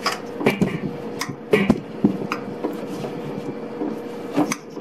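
Bakpao dough being kneaded by hand in a stainless steel bowl: irregular knocks and thuds as the dough is pushed down and the metal bowl shifts against the wooden board, over a steady hum.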